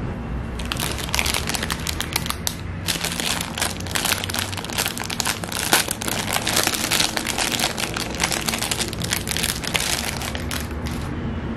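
Thin clear plastic bag crinkling and crackling as hands open it and pull out a sandwich roll: a dense run of crackles with a short pause about two and a half seconds in, over a steady low background hum.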